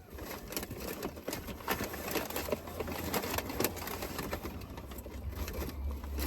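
Close-up eating sounds: chewing with frequent irregular wet clicks and smacks, over a steady low hum.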